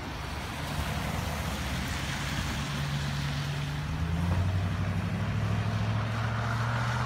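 An engine running with a low, steady hum that shifts in pitch about two and a half seconds in and again near four seconds, when it grows louder, over an even hiss.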